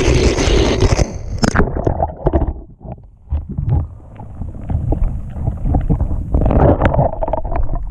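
A GoPro riding a Hot Wheels car down plastic track: a loud rushing rattle of the wheels on the track that cuts off about a second in as the car drops into a pool of water and Orbeez water beads. Then muffled underwater sloshing and gurgling, heard through the camera's housing, with many small knocks and clicks.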